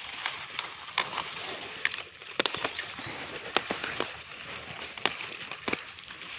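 Crisp frilly mustard green leaves snapped off their stalks by hand, a scatter of sharp snaps over a rustling of leaves.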